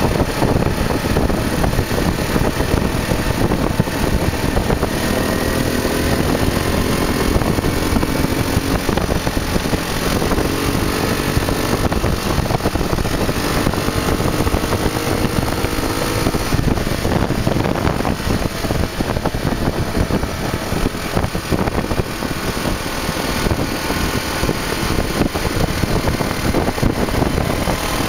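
A small open buggy's engine runs as the buggy drives along a paved road, its pitch rising and falling with speed. Dense wind and road noise run over it.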